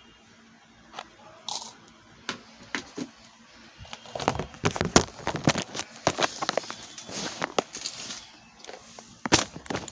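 Small oxidised gold-tone metal charms and beads clinking and clattering against each other in a plastic storage box. A few scattered clinks come first, then a dense run of clatter from about four seconds in, and a last few clinks near the end.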